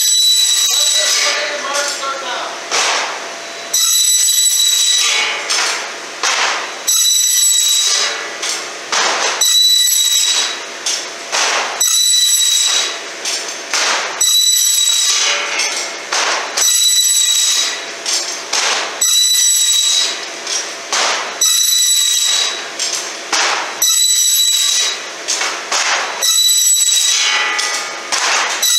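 Double-head end trim saw's circular blades cutting aluminum sill stock in a steady automatic cycle, about one cut every one and a half seconds. Each cut is a loud, high-pitched ringing screech of blade in metal, dropping back between cuts.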